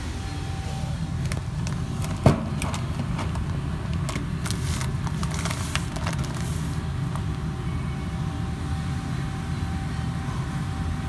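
Steady low hum of machinery with a thin, steady whine above it. Scattered clicks and knocks, the loudest a single sharp knock about two seconds in.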